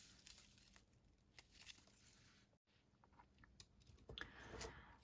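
Near silence, with a few faint rustles and soft clicks from a crocheted raffia piece being handled.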